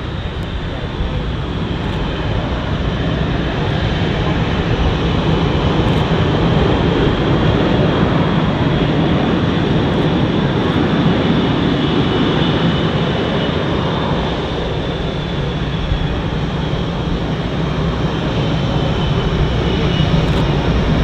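Blue Angels F/A-18 Hornet jet engines running, a loud steady rush with a faint high turbine whine that drifts slightly in pitch.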